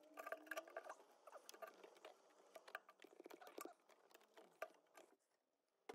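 Faint scratchy clicks and rustling of gloved hands working the plastic wiring-harness plug off the fuel-injection ECU.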